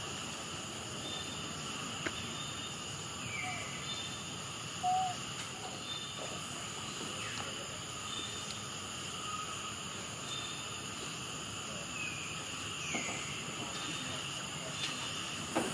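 Outdoor ambience: a steady insect drone with scattered short chirps, and one brief, higher call about five seconds in.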